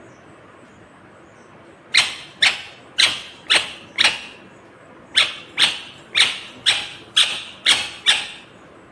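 Rose-ringed parakeet (Indian ringneck) giving a series of short, sharp calls at about two a second: five in a run starting about two seconds in, then, after a short pause, seven more.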